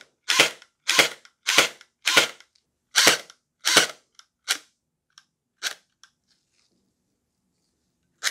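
Splat-R-Ball gel blaster gearbox with metal gears and a stiff M90 spring firing on full auto: sharp shots of the piston releasing, about one and a half a second. About four seconds in, the shots weaken and slow, and they stop about six seconds in as the motor cuts out, which the owner suspects is the battery's current limiter or low voltage under the stronger spring.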